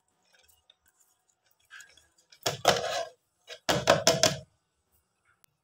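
Electric blender (mixer-grinder) run in two short bursts of under a second each, about a second apart, grinding soaked urad (maash) dal. Faint clicks of the jar and lid being handled come first.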